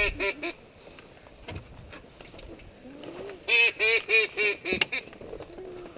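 Mallard-style duck quacking: a few quacks trailing off at the start, then after a quiet stretch a loud series of about six quacks in quick succession.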